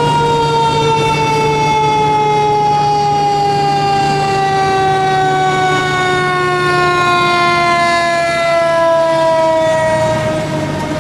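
Fire engine siren sounding as the pumper passes. It sweeps up quickly to a high wail, then winds slowly and steadily down in pitch, over a steady low hum from the truck.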